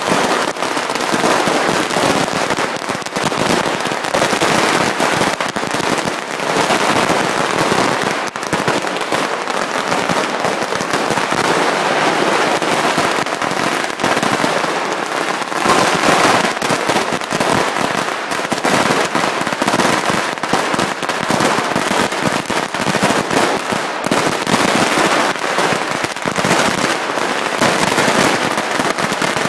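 A long string of firecrackers going off on the street: a loud, dense, unbroken rattle of bangs that never pauses.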